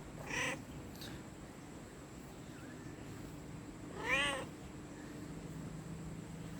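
Domestic cat meowing: a short meow near the start, then a louder, longer meow about four seconds in that rises and falls in pitch.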